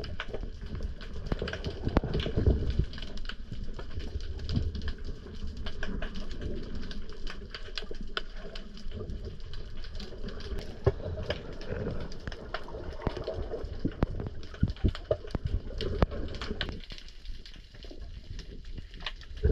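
Underwater ambient sound heard by a submerged camera: a dense, irregular crackle of clicks over a low rumble of moving water. The rumble drops away near the end.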